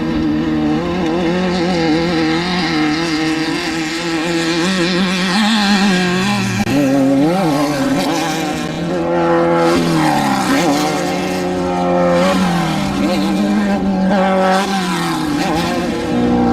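Off-road race vehicle engine running hard and revving, its pitch climbing and falling several times.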